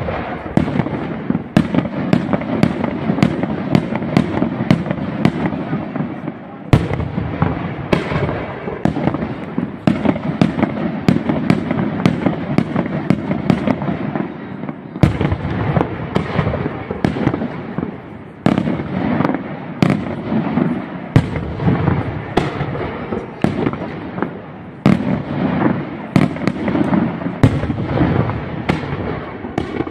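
Aerial firework shells bursting in a fast barrage: sharp bangs two or three a second over a continuous crackle. It starts suddenly at full loudness.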